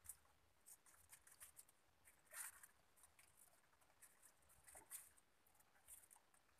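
Near silence apart from faint, scattered scratching and rustling of gloved hands working nylon gill-net mesh to free flower crabs, with one slightly louder scrape about two and a half seconds in.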